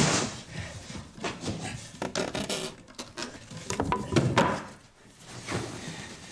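Scattered knocks, clicks and scraping rustles of objects being handled, with a louder scrape about two seconds in and another a little past four seconds.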